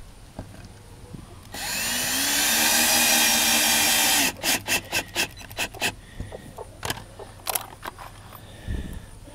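Cordless drill driving a wood screw through a metal hinge into a wooden door: the motor runs steadily for about three seconds, its hum rising slightly, then gives a quick run of sharp clicks about four a second as the screw is set. Scattered knocks follow, with a low thump near the end.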